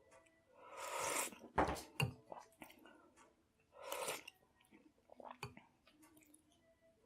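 A person eating chicken soup: two noisy slurps from a spoon, about a second in and about four seconds in, with a couple of sharp knocks and a few fainter clicks between them.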